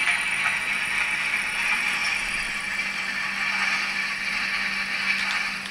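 ACME H0-scale model E636 electric locomotive running on the layout track: a steady mechanical whirr of its motor, gears and wheels, with a low steady hum underneath. The sound drops away near the end.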